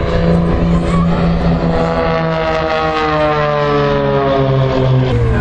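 Aircraft flying past at an airshow display, its engine note gliding steadily lower in pitch as it goes by, over a constant low rumble.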